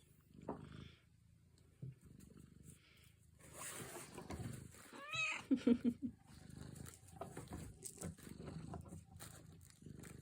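Mother cat grumbling and growling low, with a short wavering cry about five seconds in; she sounds upset while her kittens play.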